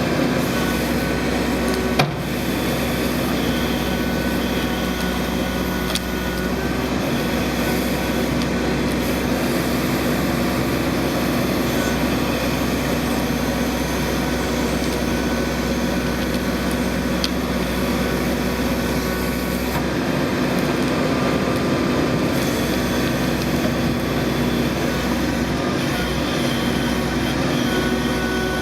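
Backhoe loader's diesel engine running steadily while it works, with a sharp knock about two seconds in.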